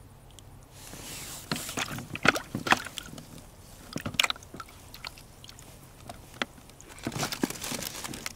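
Handling noises in an inflatable boat: clothing rustling and scattered sharp clicks and taps as a small perch and fishing tackle are worked by hand, in clusters rather than a steady run.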